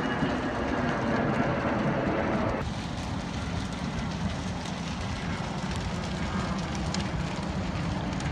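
Steady low rumbling noise, with no speech or music. Its tone changes abruptly about two and a half seconds in.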